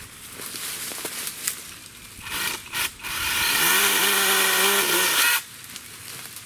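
NaTiddy mini battery-powered chainsaw whining up to speed about three seconds in and cutting through a Leyland cypress branch for roughly two seconds, then stopping abruptly. Before it come rustling branches and a couple of short bursts.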